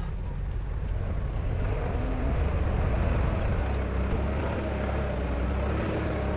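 Diesel engine of heavy construction machinery running under load, growing louder over the first two seconds or so and then holding steady.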